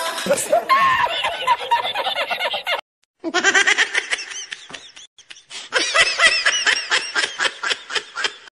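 A man laughing loudly and heartily in quick, repeated bursts, with a brief silent break about three seconds in.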